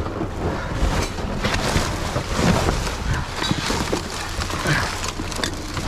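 Rummaging through trash in a dumpster: irregular rustling, knocking and clattering as junk is shifted and handled, over a low steady rumble.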